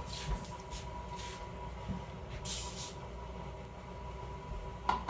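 Short hissing squirts of spray starch from an aerosol can into a bowl of glue slime mixture, a few bursts, the longest about half a second.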